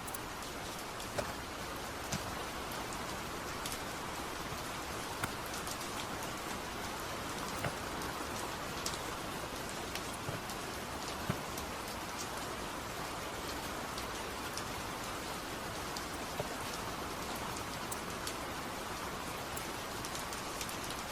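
Steady rain falling, an even hiss with sharp drips scattered through it about once a second.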